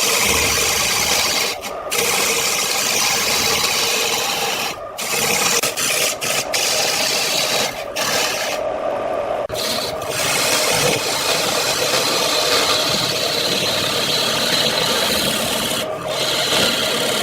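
Wood on a spinning lathe being worked with a turning tool: a steady scraping, rasping noise, broken by a few short pauses where the tool comes off the wood, the longest about two thirds of the way in.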